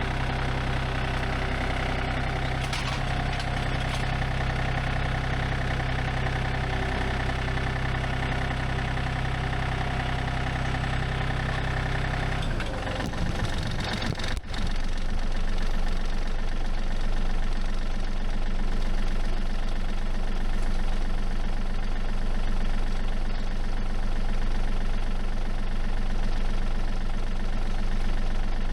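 New Holland Workmaster tractor engine running steadily. About halfway through, the sound breaks briefly and changes, then the engine runs on with a rougher, faster-pulsing tone.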